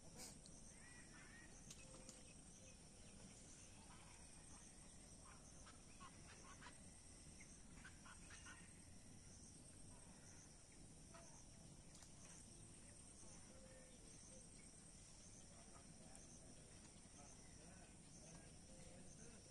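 Faint waterside ambience: a steady high-pitched buzz with a pulsing pattern, and scattered short distant bird calls.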